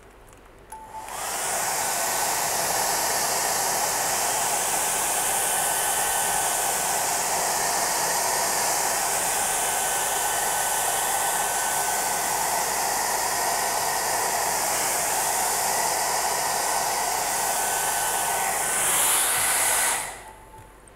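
Handheld hair dryer switched on about a second in, running steadily with a faint whine on top of its rush of air, blowing across wet epoxy resin to push the white pigment into lacy ocean waves. It gets a little louder near the end, then switches off.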